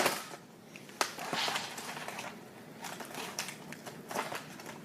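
Handling noises of a toy blaster's box packaging: a sharp click about a second in, then scattered light clicks and crinkles.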